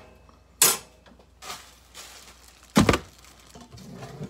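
Kitchen clatter: a few separate knocks and thuds of things being handled and set down, the loudest under a second in and near three seconds in, with smaller taps between.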